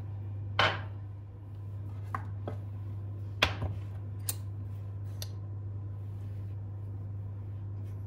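A few sharp clicks and knocks of kitchen items being handled, two of them louder, over a steady low hum.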